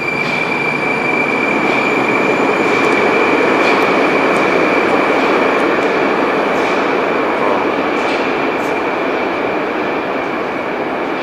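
Moscow Metro 81-765 'Moscow-2019' train pulling out and running off into the tunnel: a loud rumble of wheels and running gear, with a steady high-pitched squeal over it. It is loudest a few seconds in and eases off slightly toward the end.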